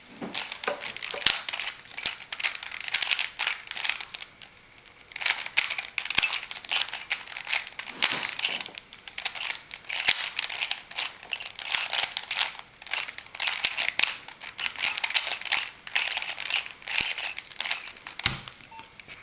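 3x3 Rubik's cube being turned by hand in quick runs of moves, its plastic layers clicking and clacking, with a short lull about four seconds in.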